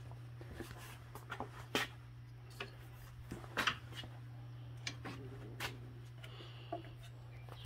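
Scattered light clicks and taps of an aluminium car radiator and its plastic fittings being handled, over a steady low hum.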